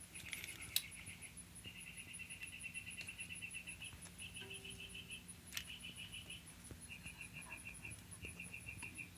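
Crickets chirping in short groups of rapid pulses, repeating, with a fainter fast high ticking from another insect running underneath. A sharp click sounds about a second in and another a little past halfway.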